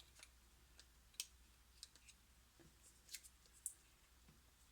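Near silence broken by a few faint, sharp clicks and taps, as from small smartphone parts and tools being handled.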